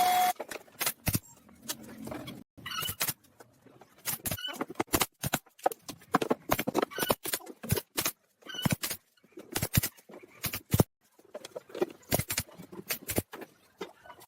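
A string of irregular light knocks and clicks, some close together and some a second apart, broken by several sudden silent gaps.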